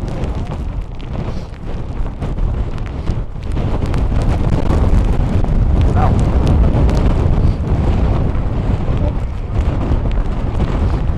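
Gale-force wind buffeting the microphone, a loud low rumble that grows stronger about three and a half seconds in.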